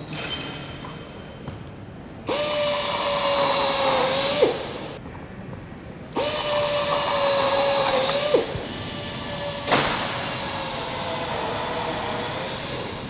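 Power drill running in three bursts of two to three seconds, each a steady whine over a hiss that drops in pitch as the trigger is released.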